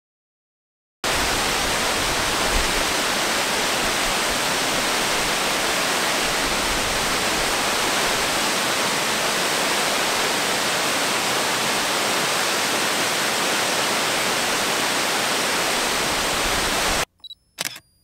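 Steady rushing noise of a large waterfall close by, starting suddenly about a second in and cutting off abruptly near the end. Two short clicks follow the cut.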